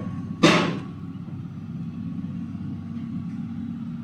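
Heavy diesel machinery engine running steadily at low revs, with a sudden loud burst of noise about half a second in that dies away quickly.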